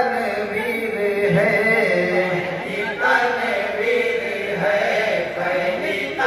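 A group of men chanting an Urdu naat together through microphones, unaccompanied, in long sung phrases that start anew about every three seconds.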